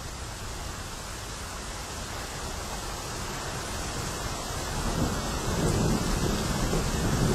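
Rain and thunder: a steady hiss of rain with a low rumble of thunder swelling and growing louder from about five seconds in.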